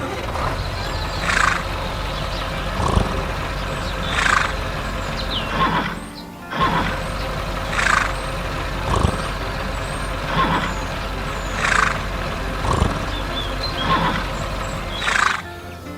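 Cartoon soundtrack: music over a steady low machine drone, with a short burst about every second and a half. The whole track drops out briefly about six seconds in.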